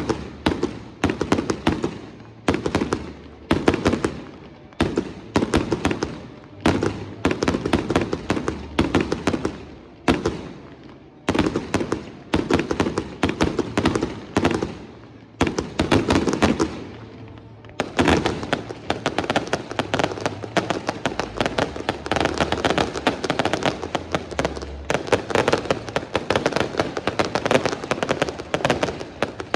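Fireworks display: volleys of shell bursts and crackling reports come in quick succession, about one cluster a second. About eighteen seconds in they merge into a continuous dense barrage of rapid bangs and crackle.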